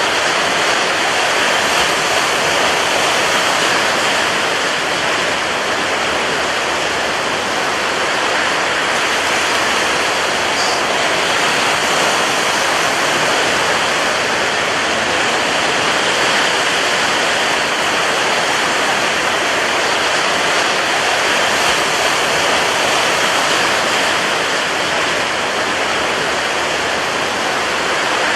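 Rough sea and strong wind making a steady, dense rushing noise, even in loudness throughout, with no separate wave crashes standing out.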